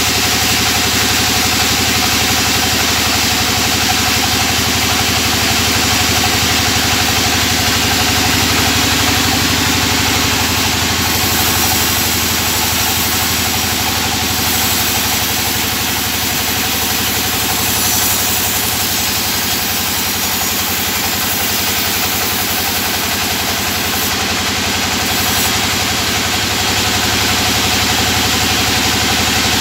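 Large band saw mill running steadily while sawing timber into thin boards, a loud, even machine sound without a break.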